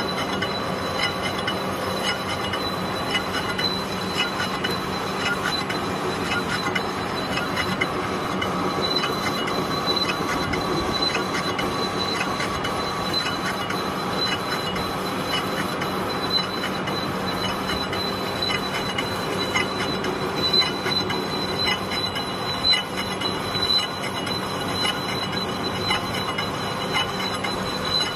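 Metal lathe turning a 12-inch spacer in a four-jaw chuck while the tool cuts: a steady machine drone with a thin, high, unbroken whine and many small ticks.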